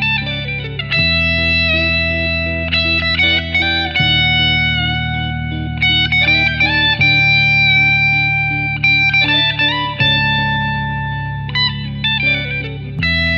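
Drumless instrumental guitar music in a minor Dorian mode. A guitar plays a melody of quick note runs and long held notes over sustained low chords that change about every three seconds.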